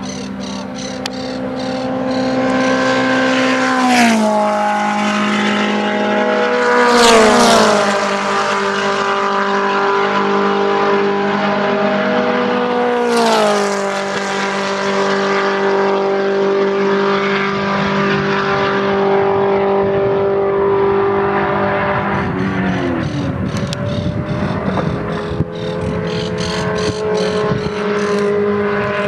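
Midget race cars with 1400 cc engines running at high revs on the circuit. The engine pitch drops sharply as cars pass about 4, 7 and 13 seconds in, loudest near 7 seconds, and the sound turns rougher after about 22 seconds.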